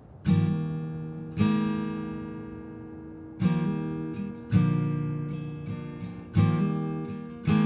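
Acoustic guitar playing slow strummed chords, each chord left to ring and fade before the next, about every one to two seconds.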